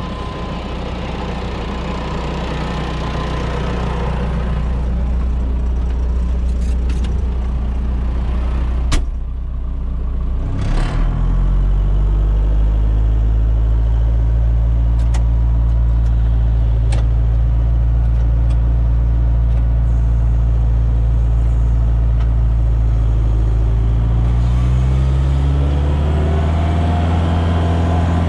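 Reform Mounty 70 mountain tractor's diesel engine running steadily while mowing with a front disc mower. The engine note drops a little after two sharp clicks about a third of the way in, and climbs again near the end.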